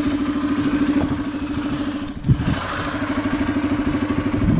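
Four-wheeler ATV engine idling steadily, with a brief dip and a single knock a little past halfway.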